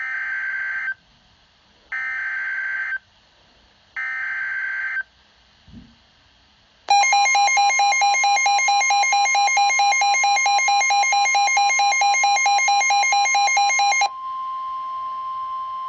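Emergency Alert System SAME header: three one-second bursts of screeching data tones, each followed by a second of silence. Then comes the EAS two-tone attention signal, a harsh steady dual tone for about seven seconds that drops to a fainter single tone near the end. It signals that a new warning, here a tornado warning, is about to be read.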